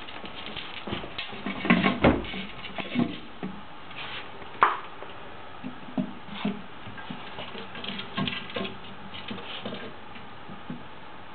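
A cat playing with a bath plug on its chain over a tiled floor: scattered light clicks and taps, with a few louder knocks about two seconds in and a sharp one near five seconds.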